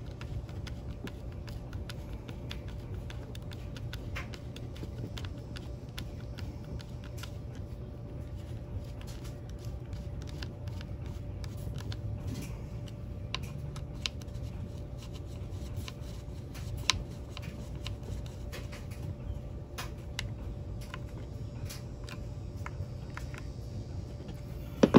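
Faint scattered clicks and scrapes of a hand screwdriver turning the screws that hold a plastic air filter base plate onto a string trimmer's carburetor, over a steady low hum.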